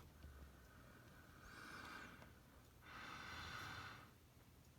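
Near silence with two faint breaths, each about a second long, the first about a second and a half in and the second about three seconds in.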